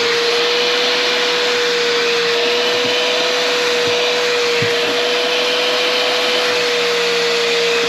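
Bissell SpotClean Pro portable carpet cleaner running at full suction: a steady rush of air with a constant mid-pitched motor whine as its hose draws water out of soaked vehicle floor carpet.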